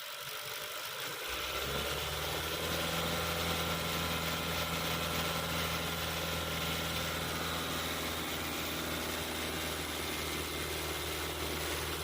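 Hyundai Sonata DN8 2.5 four-cylinder engine running at idle, the engine being checked for a rattling noise. A deeper steady hum comes in about a second in and holds.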